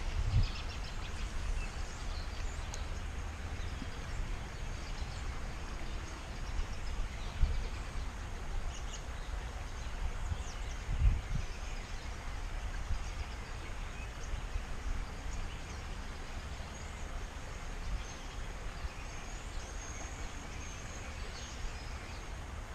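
Creekside outdoor ambience: a steady low rumble on the camera microphone, a few handling thumps (the loudest about a third and halfway through), and faint bird chirps.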